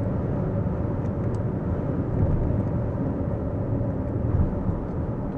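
Steady low rumble of tyre and wind noise inside the cabin of a Lexus RZ 450e electric SUV cruising on the motorway, with no engine note.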